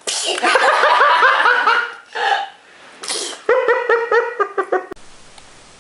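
A small child laughing in quick, high-pitched giggles, with a short breathy burst about three seconds in; the laughter cuts off abruptly about five seconds in.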